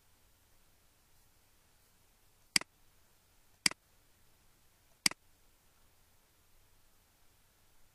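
Three sharp computer mouse clicks, spaced about a second apart, each a quick press-and-release.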